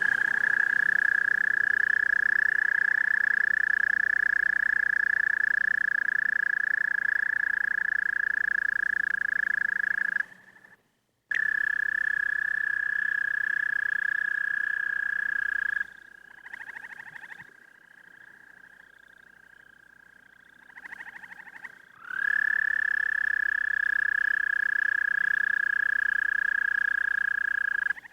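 A toad singing: long, steady, high-pitched trills. The first lasts about ten seconds; after a brief break a shorter one follows, then a fainter stretch with a few short soft calls, and a last long trill of about six seconds near the end.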